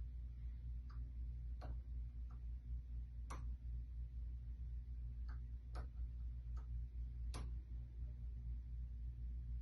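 Light, irregularly spaced clicks of a lock pick and tension wrench working the pins of a door lock cylinder, about ten in all, over a steady low hum.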